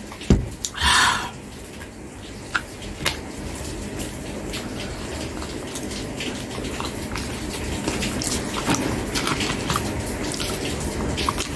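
Close-miked eating sounds: a knock near the start and a short breathy rush about a second in, then scattered wet mouth clicks and spoon taps as spoonfuls of food are scooped and chewed.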